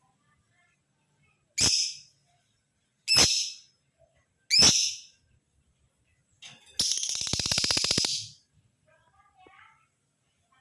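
Male lovebird giving three short, shrill screeching calls about a second and a half apart, then a fast rattling chatter lasting over a second, and faint softer chirps near the end.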